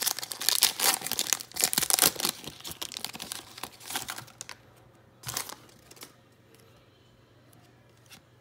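Foil wrapper of a Donruss Optic trading-card pack crinkling and tearing as it is ripped open by hand, in a dense crackly run of about four and a half seconds, then one more short crinkle about five seconds in.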